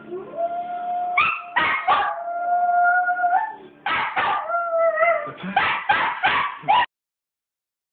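Small white dog howling: a howl that rises and then holds, broken by sharp yips, then a second held howl and a quick run of yips. The sound cuts off suddenly near the end.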